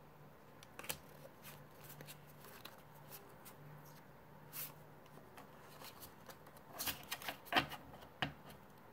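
Pokémon trading cards being handled and rearranged in the hands: quiet scattered slides and flicks of card against card, with a louder flurry of card snaps about seven seconds in.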